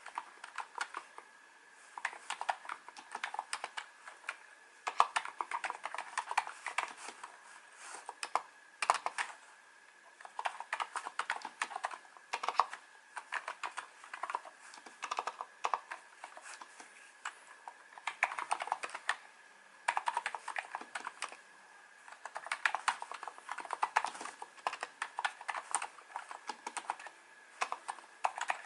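Typing on a NiZ Plum 87-key electrostatic capacitive keyboard with 35 g switches: quick runs of keystrokes broken by short pauses.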